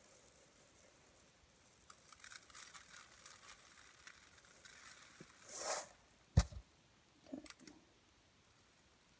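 Dry rice grains dropped to make a rain sound effect: an irregular patter of tiny grain ticks that swells into a brief rushing shower about five and a half seconds in. A single sharp knock follows, the loudest sound, then a few scattered clicks.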